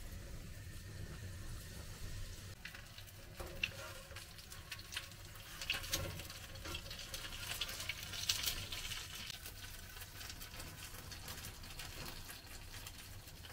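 Food frying in hot oil: a steady sizzle with many sharp crackles and pops, busiest in the middle and thinning out near the end.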